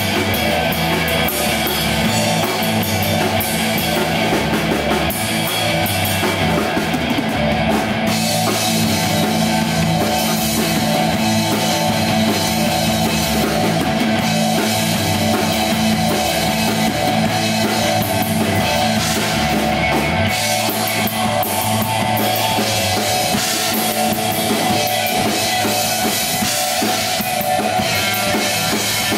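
Live rock band playing loud and steady: drum kit, electric bass and electric guitar. The deepest bass notes drop away about two-thirds of the way through while the drums and guitar carry on.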